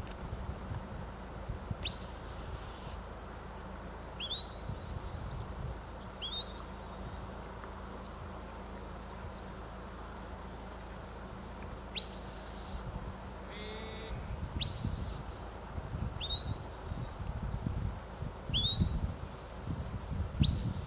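Shepherd's whistle commands to a working sheepdog: four whistles that sweep up sharply and hold a high note for about a second, alternating with four short rising chirps. Low wind rumble on the microphone, stronger in the second half.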